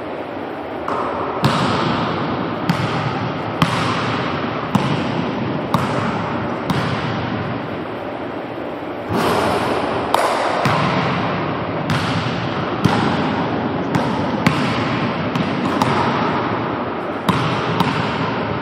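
A basketball bouncing on a hardwood gym floor, sharp thuds at irregular intervals of roughly a second, each ringing on in the echo of the large empty gym, over a steady background hiss.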